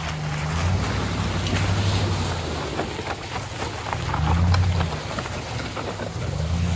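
Wind buffeting the microphone in low rumbling gusts, strongest about four and a half seconds in, over a steady hiss of shallow water trickling through a muddy creek.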